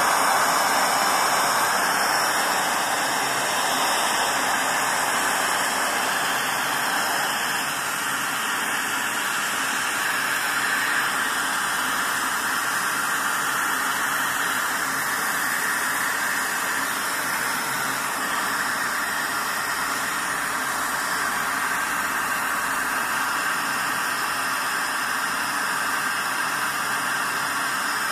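Steady, even hiss of workshop machine noise with no stitching rhythm, a little louder in the first few seconds.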